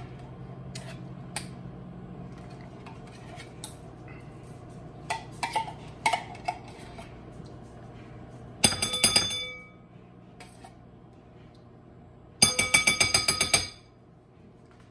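Metal spoon scraping and knocking inside an opened tin can of condensed cheddar cheese soup to scoop it out: a few light clicks, then two runs of rapid clinks about a second long each, the can ringing.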